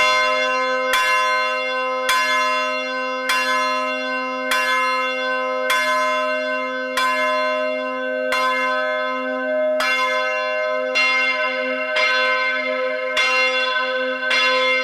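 A single tower bell hung for English change ringing being rung up. It strikes the same note about once a second as it is swung through ever larger arcs toward its balance mouth up, and each stroke rings on into the next.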